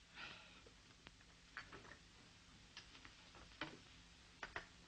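Near silence: quiet room tone with a soft rustle near the start and a few faint, irregular taps and knocks from people moving about.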